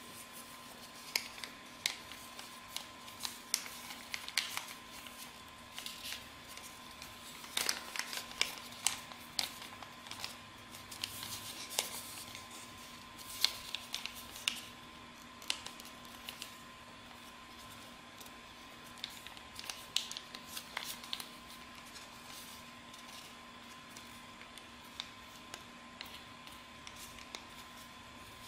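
A sheet of white A4 paper being folded and creased by hand for an origami boat: irregular crinkles and sharp paper crackles, busiest in the first half and again about twenty seconds in, sparser near the end.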